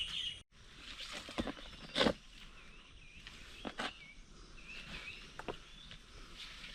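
Footsteps on a forest trail, a handful of separate steps, with small birds chirping.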